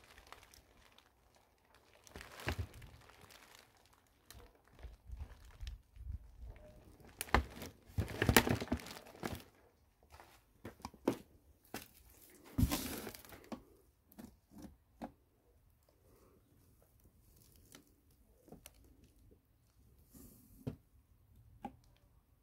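Plastic sack of dry cat food and its cardboard box being handled: irregular crinkling and rustling, loudest in bursts about a third of the way in and just past halfway, then only scattered small clicks.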